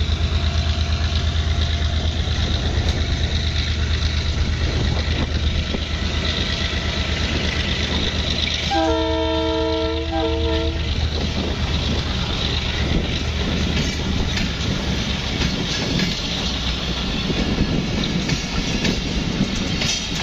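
Pakistan Railways diesel-hauled passenger train running past: the locomotive's low engine drone fades as it moves away while the coaches roll by with a steady rumble and clatter over the rail joints. A little under halfway through, the locomotive's horn sounds one chord for about two seconds.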